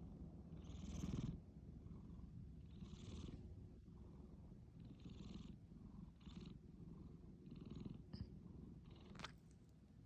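A sleeping cat snoring: a hissy breath every one to two seconds over a steady low rumble.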